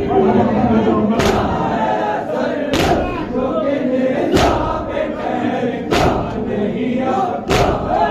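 Crowd of men chanting a noha together, punctuated by loud unison chest-beating (matam) strikes, evenly spaced about every second and a half, five in all.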